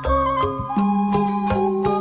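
Music: a melody of held notes stepping from pitch to pitch over regular percussion strikes, with a low sustained note coming in under it about three-quarters of a second in.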